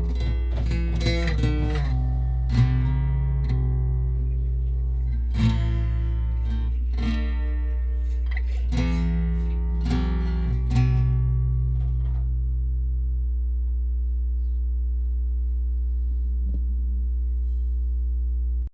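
Instrumental music: plucked guitar notes over a steady low drone. The playing stops about twelve seconds in, the last notes ring out, and the sound cuts off abruptly at the end.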